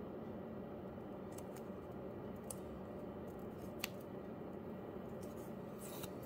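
Faint handling sounds of plastic card sleeves and rigid top loaders: a few light clicks and a short plastic rustle near the end, over steady background hiss.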